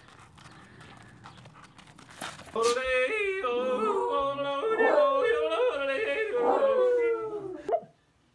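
A man yodeling, his voice flipping up and down in pitch, while the small dog in his arms howls along. It starts about two and a half seconds in, lasts about five seconds, and cuts off suddenly near the end.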